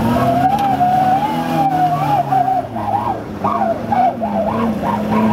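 A small pickup truck's engine revving hard while its wheels spin in mud. A higher whine wavers quickly up and down over a steady lower engine note.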